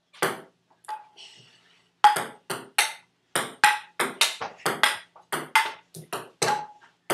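Table tennis rally: the celluloid ball clicks off the paddles and the table with a short ping on many hits. Two single hits, then from about two seconds in a quick run of about three hits a second.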